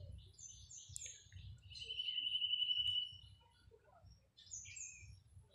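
Small birds calling: short high chirps, and a high, rapidly pulsing trill about two seconds in that lasts a second and a half, over a low steady background hum.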